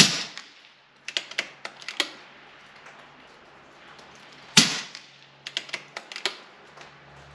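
Two shots from a KalibrGun Cricket II .22 PCP air rifle, one at the start and one about four and a half seconds in, each followed about a second later by a quick run of mechanical clicks as the sidelever is worked to cock it and advance the magazine. These are the last two shots of the fill, fired after the air pressure has dropped below the regulator setting.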